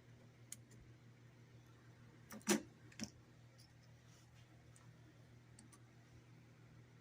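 Faint clicks of small metal hardware being handled, with one sharper knock about two and a half seconds in and a smaller one half a second later, over a low steady hum.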